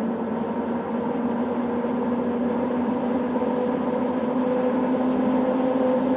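Cooling fans of an Applied Biosystems GeneAmp PCR System 9700 thermal cycler running hard, a steady whirring hum with a low held tone, growing a little louder. The fans are actively chilling the sample block below room temperature toward its 15 °C hold.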